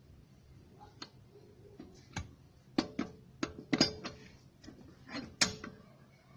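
Metal hand tools clanking on the jacked-up front wheel: irregular clicks and knocks, the loudest in the middle, a few with a short metallic ring.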